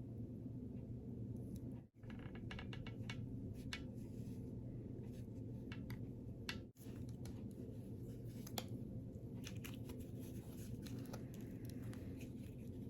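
Light clicks and scratchy handling sounds of glue being run around the inside of a small ornament, over a steady low hum.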